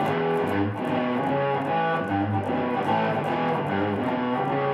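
Custom-built electric guitar with two humbucker pickups, made from wood meant for wooden skis, being played: a picked run of melodic notes changing several times a second, the guitar just tried out cold.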